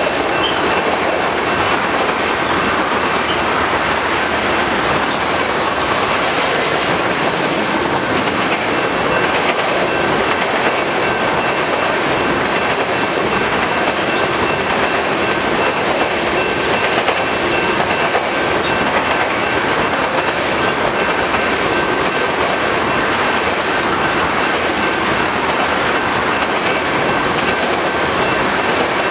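Crude-oil tank cars of a long freight train rolling past: the steady noise of steel wheels running over the rails, with a faint steady high-pitched whine.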